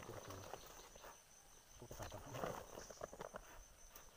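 Insects trilling steadily at a high pitch, with scattered faint rustles and clicks.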